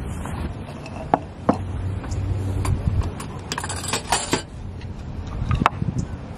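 Tableware being set down on a picnic table: a few sharp knocks, and a cluster of ringing clinks about halfway through. Low wind rumble on the microphone underneath.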